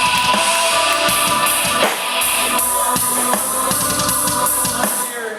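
Wrestlers' entrance music: a loud track with a steady drum-kit beat of bass drum and cymbals.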